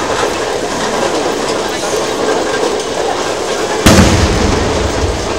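An aerial firework shell bursting with a single sharp boom about four seconds in, followed by a short low rumble.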